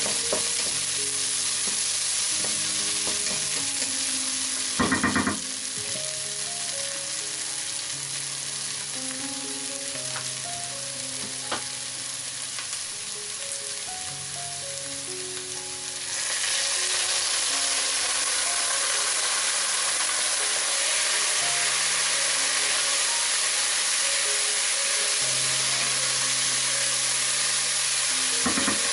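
Diced onion, carrot and celery root sizzling in a pot as a wooden spoon stirs them, with a brief knock about five seconds in. The sizzle grows louder about halfway through.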